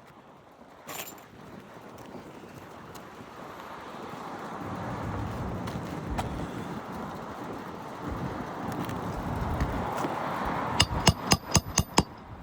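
A swelling rush of noise, then a quick run of about seven sharp metallic clinks near the end, as a metal roofing tool knocks against the shingles and nails.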